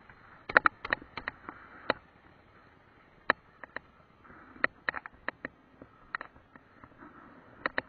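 Irregular sharp clicks and light knocks, some in quick pairs, from a small action camera being handled and carried over dry sandy ground.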